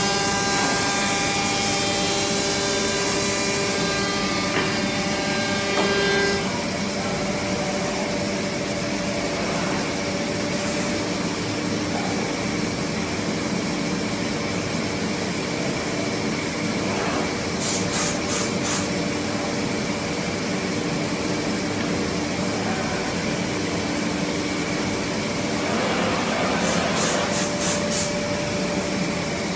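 3D CNC wood milling machine running, its spindle cutting a wooden blank with a steady whine of several held tones. A higher whine stops about six seconds in, and two short clusters of rapid high-pitched pulses come near the middle and near the end.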